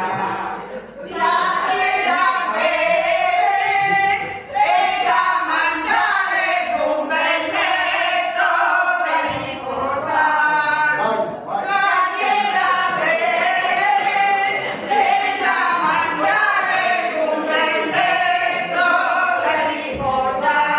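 A group of men's and women's voices singing a song together, unaccompanied.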